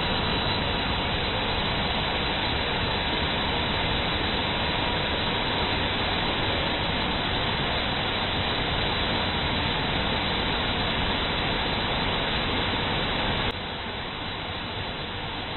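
Steady, even mechanical noise from a CNC panel saw running, dropping abruptly to a lower level about 13 seconds in.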